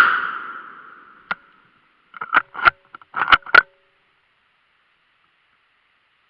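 The tail of a loud shot fading out over about a second and a half, followed by one click and then a quick series of sharp clicks and knocks between about two and three and a half seconds in.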